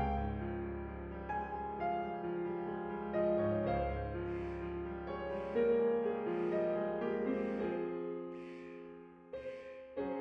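Slow piano music with long held notes and chords.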